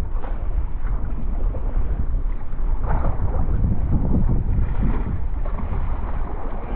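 Strong wind rumbling on the microphone over choppy sea waves splashing against an inflatable kayak, with a few brief louder splashes.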